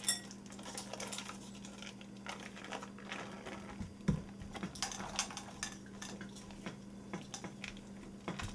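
Foil wrappers being peeled off blocks of cream cheese, crinkling and crackling in many short bursts, with light clinks and a dull thump about four seconds in as cheese goes into a plastic mixing bowl.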